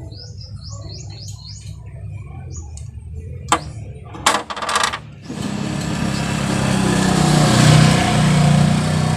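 A sharp click, then a brief metallic crackle, then a motor vehicle's engine growing loud close by and staying loud.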